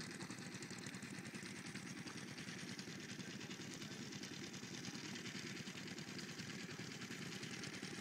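An engine running steadily: a continuous low rumble with fast even pulsing and a hiss above it, with no change in speed.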